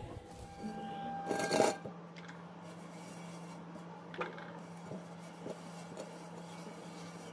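A hand rubbing and smoothing wet wall putty over the surface of a pot, with one brief louder scrape about a second and a half in and a few faint taps later.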